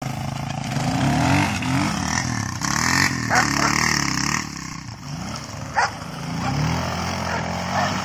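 Honda XR200R dirt bike's single-cylinder four-stroke engine revving up and down again and again as the rear tire spins in snow, with a hiss of spraying snow. A single sharp knock comes about six seconds in.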